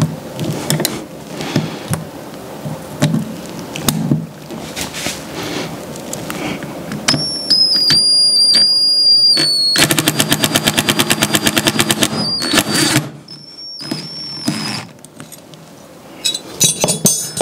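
Cordless impact driver on a stubborn scissor pivot screw: metal clicks and rattles of the scissors and bit at first, then the motor whines as it spins, and about ten seconds in the impact mechanism hammers rapidly for about three seconds. A shorter whine and a brief burst of rattling follow near the end.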